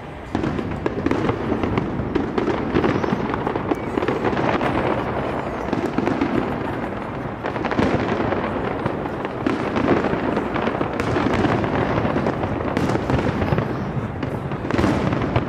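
New Year's fireworks display: a dense, unbroken barrage of bangs and crackles, many bursts overlapping, rising sharply in level just after the start.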